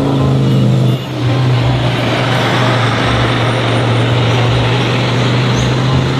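Heavy truck engine running with a steady low drone and road noise, with a short dip about a second in.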